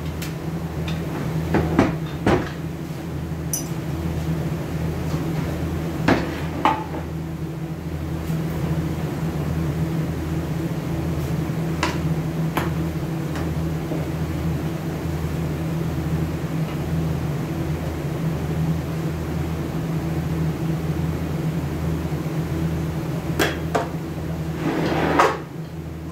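Short metal knocks and clanks, about ten in small clusters, as the stripped case of a Toyota A442F automatic transmission and a long bar are handled on a workbench. Under them runs a steady low machine hum with a slow, even throb.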